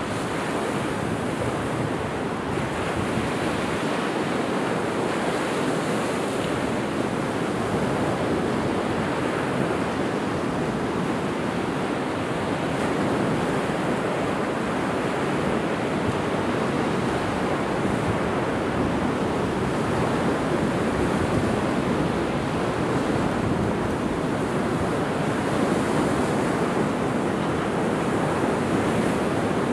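Ocean surf breaking and washing up the beach, a steady continuous rush.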